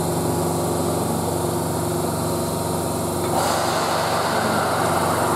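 Keio 8000-series electric train standing at the platform with a steady electrical hum from its onboard equipment. About three and a half seconds in, a rushing hiss sets in as the train gets ready to pull away.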